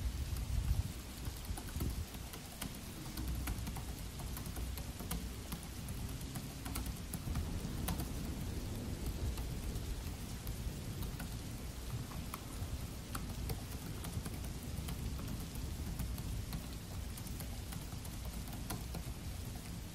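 Steady rain with a low rumble of thunder, heaviest in the first couple of seconds, under scattered soft clicks of a Dell laptop's keys being typed on.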